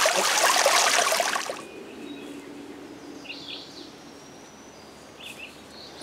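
Small woodland stream rushing and trickling, which cuts off abruptly about a second and a half in. Quiet forest ambience follows, with a few faint bird chirps and a faint steady low hum.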